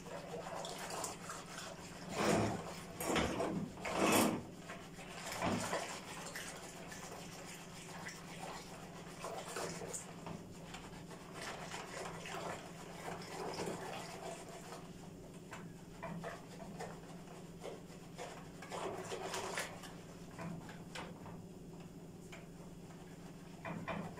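Hand whisk beating yogurt starter into lukewarm milk in a bowl: irregular swishing and scraping strokes, the four loudest in the first six seconds, softer and more even after.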